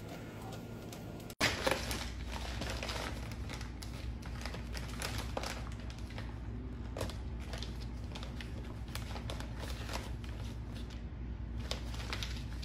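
Crinkling and rustling of shiny plastic wrapping in a cardboard tray as a dachshund puppy paws at it and tugs it with its mouth: many irregular crackles, starting abruptly about a second and a half in after a low steady hum.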